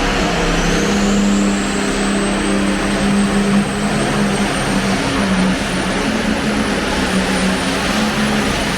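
Competition pulling vehicle's engine running flat out under load, a loud steady drone with a thin high whine that rises a little over the first few seconds and then holds.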